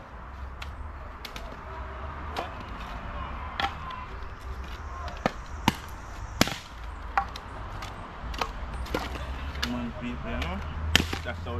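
Machete chopping dry sticks for firewood: a series of sharp chops at uneven intervals, roughly one every half second to a second.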